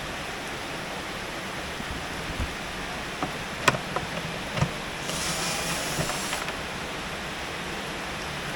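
Steady hiss of heavy rain. Around the middle come a few sharp knocks and clicks, and about five seconds in a brief high hiss lasting just over a second.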